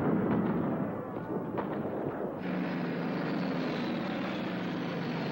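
The rumble of a blast dying away, then from about two and a half seconds in the steady drone of several piston-engined aircraft in flight, with a faint high whine slowly falling in pitch.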